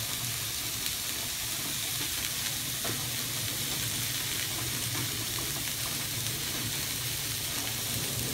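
Steady sizzling hiss of food cooking on the stovetop, with a low steady hum underneath and a few faint ticks.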